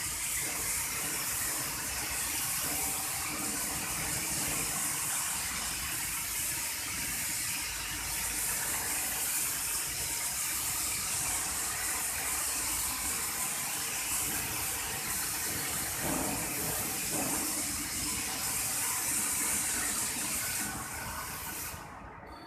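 Paint spray machine spraying wall paint: a steady high hiss from the spray gun that cuts off near the end.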